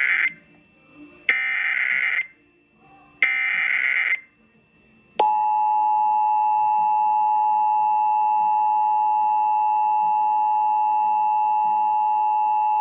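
Emergency Alert System SAME header for a Required Monthly Test: the tail of one digital data burst, then two more short bursts, each about a second long. About five seconds in, the EAS two-tone attention signal begins, a steady dual tone.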